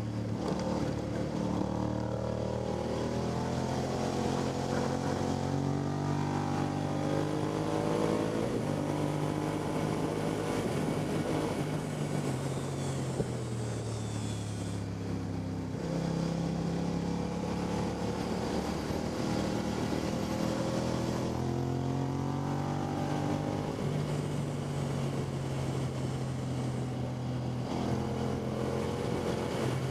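Motorcycle engine at full lap pace: the pitch climbs under acceleration, steps down at gear changes and falls when slowing for corners, several times over, with steady wind noise rushing over the microphone.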